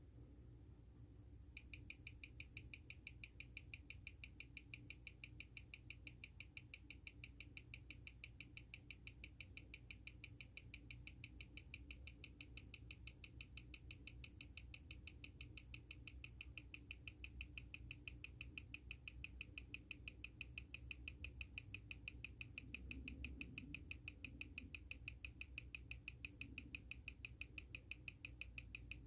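Seiko SARB035's 6R15 automatic movement ticking at 21,600 beats per hour, a fast, perfectly even six ticks a second, picked up and played back by a timegrapher. The ticking starts about a second and a half in. The timegrapher reads it at about −1 s/day with 229° amplitude and 0.1 ms beat error.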